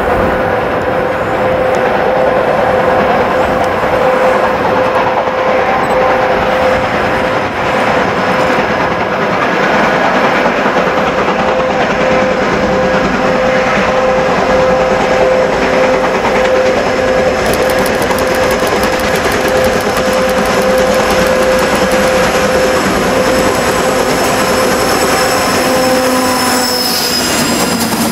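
A heavy coal train, led by a class 132 diesel locomotive with steam locomotive 52 8079 behind it, approaches and passes close by. It makes a loud steady drone with a held tone, which drops in pitch as the locomotives go past near the end.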